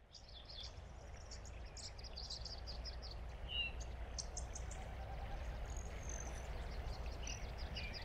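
Outdoor ambience of birds chirping and calling in quick short notes over a steady low rumble, fading in at the start.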